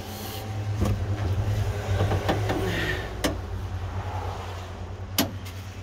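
Freightliner Columbia's tilt hood being unlatched and swung open, with a few sharp knocks about one, three and five seconds in. Under it runs the steady low hum of the Detroit Diesel Series 60 12.7-litre engine idling, which grows louder about a second in as the engine bay comes open.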